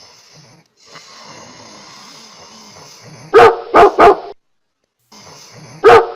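A dog barking in two quick runs of three sharp barks, the second run a couple of seconds after the first, over a faint steady hiss.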